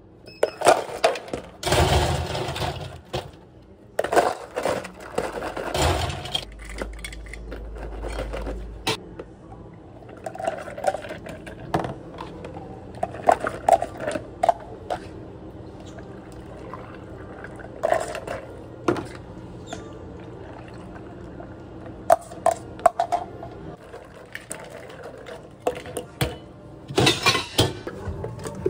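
Iced drinks being made by hand: ice clattering in plastic cups, liquid poured over it, and cups, scoops and jugs knocked and set down on a steel counter, in irregular bursts. A low steady hum runs briefly from about a quarter of the way in.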